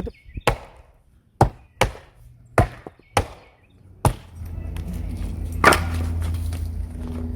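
Sharp wooden knocks of firewood being struck or handled, about eight irregular cracks and thunks. A steady low hum comes in about four seconds in.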